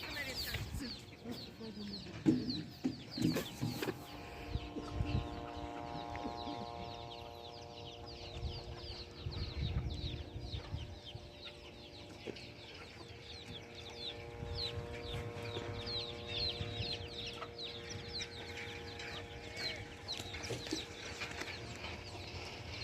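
A flock of chickens clucking, with many short high peeps over it. A steady hum of several pitches drones underneath from about four seconds in until near the end.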